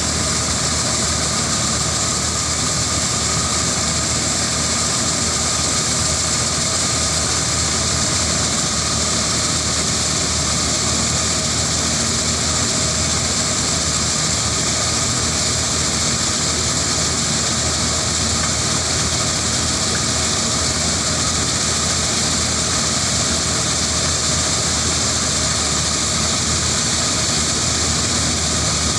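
Corn-harvesting machine running steadily, its engine drone mixed with a constant high hiss from the working machinery.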